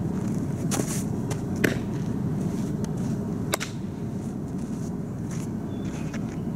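Fastpitch softball practice: a few sharp pops of a pitched softball smacking into a catcher's mitt, the loudest about a second and a half in, over a steady low rumble.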